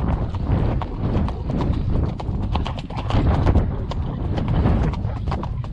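A ridden horse's hooves striking a dry dirt trail in a quick, uneven rhythm, heard close up from the saddle.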